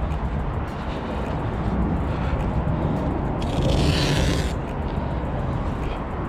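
A cold knife cutting through the soft urethane bonding a windshield. A single scraping pull lasts about a second, a little past the middle.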